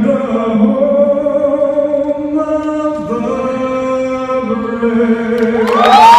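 Voices singing long held notes in chords, the chord changing about three seconds in and again a little over four seconds in. Crowd cheering and whoops break out near the end.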